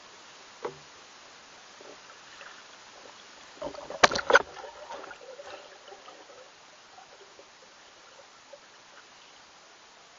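Sharp knocks and clicks picked up through a waterproof camera housing underwater as the rig shifts. A single click comes near the start and a cluster of loud knocks about four seconds in, trailing into faint crackling, over a faint steady hiss.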